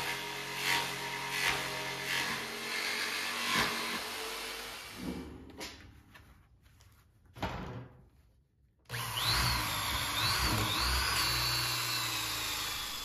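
Jigsaw cutting through stainless steel mesh clamped between plywood sheets, for about the first five seconds. After a pause with a couple of brief sounds, a corded drill with a hole saw starts about nine seconds in, its whine rising and dipping before it settles as it bores through the plywood and mesh.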